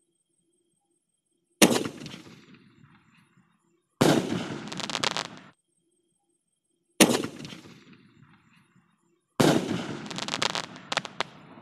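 Titan sky shot aerial firework going off: four loud bangs two to three seconds apart, each trailing away. After the last one come a few sharp crackles.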